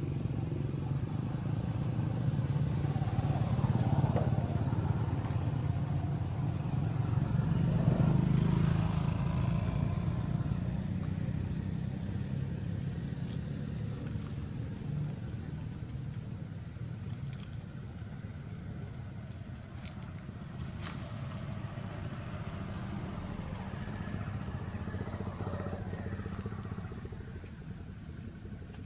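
A motor vehicle's engine rumbling, swelling twice in the first ten seconds and then fading away.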